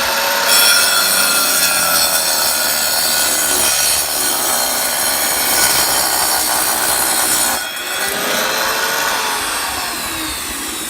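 Wet tile saw run dry, its blade cutting through a piece of Eldorado stacked stone veneer with a loud, steady grinding hiss. The water is off so it won't stain the stone. After about seven and a half seconds the cut ends and the saw runs on more quietly.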